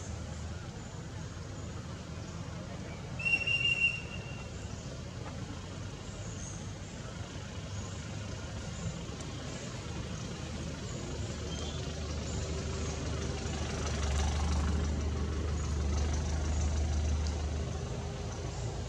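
A low engine-like rumble that swells for a few seconds near the end, with a brief high-pitched squeal about three seconds in.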